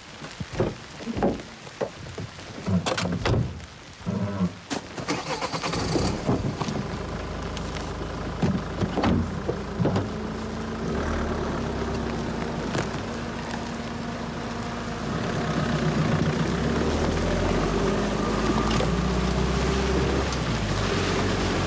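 A car engine starts about six seconds in and keeps running with a steady low rumble, louder from about fifteen seconds in. Before it, scattered knocks and rustles.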